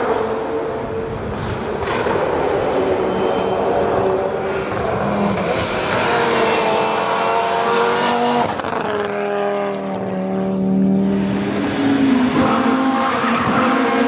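Audi Sport quattro S1 rally car's turbocharged five-cylinder engine at full throttle, its pitch repeatedly climbing and dropping through gear changes as it approaches, passes close by and pulls away.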